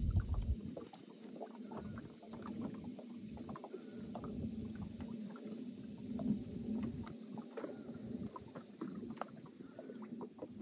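Small waves lapping and slapping against a fishing boat's hull in many quick little splashes, over a steady low hum, with gusts of wind rumbling on the microphone.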